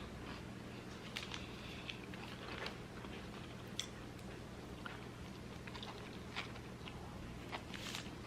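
A person chewing a mouthful of food, with soft wet mouth clicks and smacks every second or so.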